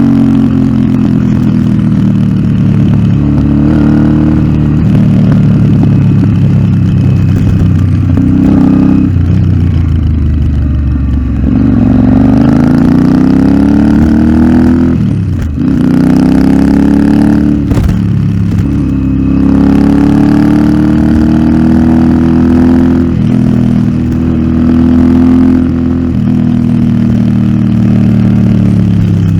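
Royal Enfield Interceptor 650's parallel-twin engine through an aftermarket Nuke exhaust, riding along with the throttle opening and closing: the engine pitch climbs and falls again and again, with two sharp drops in revs around the middle.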